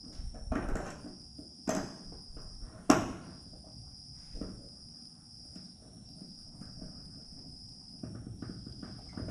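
A few light clicks and knocks as small mount hardware is handled and fitted by hand, the sharpest about three seconds in, over a steady high-pitched whine.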